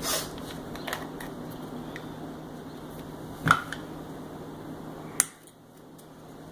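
A few scattered clicks and knocks of handling over a steady low hum. The loudest knock comes about three and a half seconds in, and a sharp click about five seconds in, after which the hum stops.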